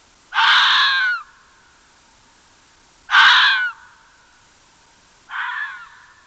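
Three harsh animal calls, each under a second long and spaced a few seconds apart. The third is quieter than the first two.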